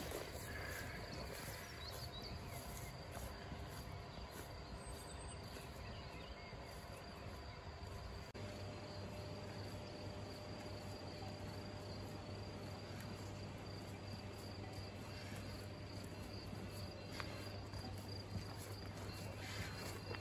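Outdoor field ambience with insects chirping steadily at a high pitch. The background changes abruptly about eight seconds in.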